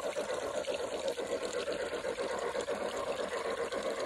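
G-scale model train running through snow on its track, a steady crackling rush of wheels and motor.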